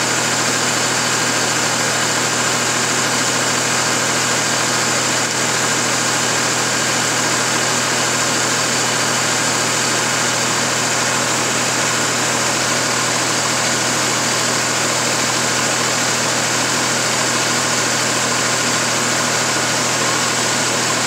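Steady machine drone with a constant hiss, unchanging throughout.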